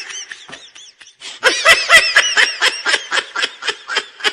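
Laughter: a run of quick, rhythmic laughs, soft at first, loud from about a second and a half in, then tapering off near the end.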